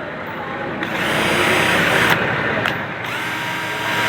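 Total 20V cordless drill motor running free, twice: a first short run, a pause of about a second, then a second run with a steady whine, as the drill is tried in forward and then in reverse.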